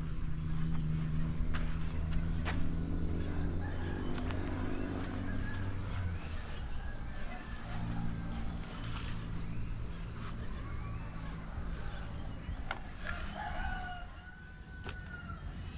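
Rural morning outdoor sound: a rooster crowing, with small birds chirping in the second half. Under it run a steady high insect hum and a low rumble.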